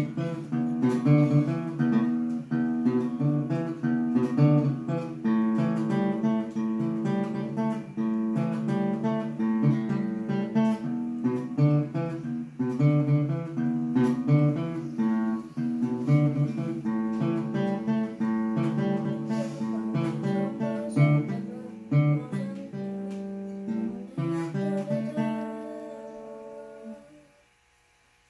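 Acoustic guitar played with plucked notes and chords in a steady tune, without singing. Near the end the last notes ring out and fade away to near silence.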